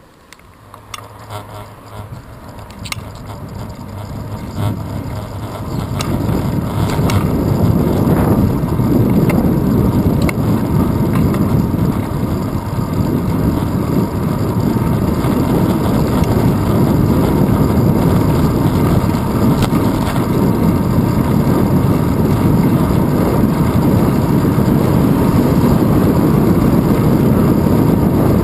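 Wind and road noise on a bicycle's handlebar-mounted GoPro microphone, growing louder over the first several seconds as the bike picks up speed from a stop and then holding as a steady low rush. A few clicks near the start.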